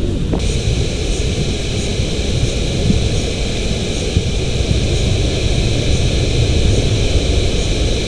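Steady rushing noise of wind buffeting the microphone, heavy and fluttering at the low end, with a steady hiss that joins about a third of a second in.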